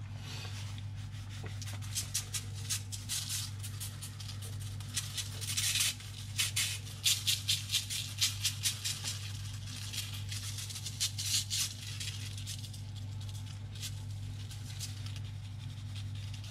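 Salt shaken from a cardboard carton onto squid pieces in a foil-lined tray: quick rattling shakes in repeated bursts, the grains hitting the foil and squid. A steady low hum runs underneath.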